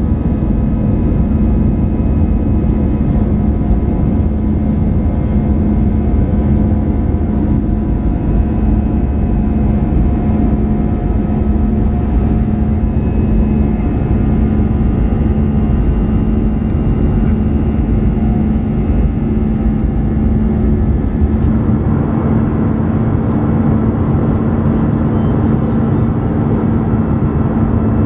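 Airbus A320 cabin noise from a window seat over the wing in flight: a steady jet-engine and airflow roar with a low hum. About three-quarters of the way through the sound grows brighter and a second hum joins it.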